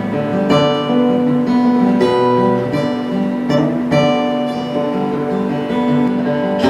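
Acoustic guitar playing an instrumental passage of a gentle song, with chords strummed every second or so.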